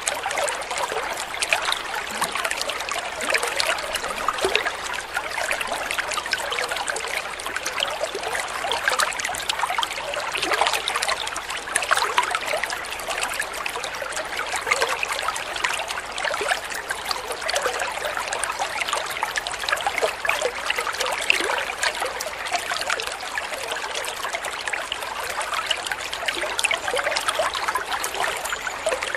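Dental suction tip drawing irrigating fluid and air out of an opened tooth during root canal treatment: a steady, wet, crackling hiss.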